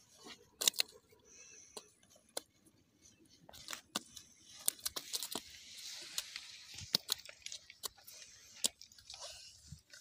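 Small river fish dropped one after another onto dry grass and mud: a scatter of sharp slaps and knocks with rustling and crunching of the dry grass, busiest about halfway through.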